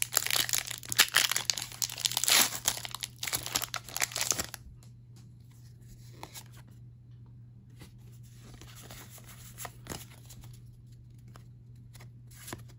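Foil wrapper of a Pokémon card booster pack torn open and crinkled for about four and a half seconds, then fainter soft clicks and rustles as the cards are handled one by one.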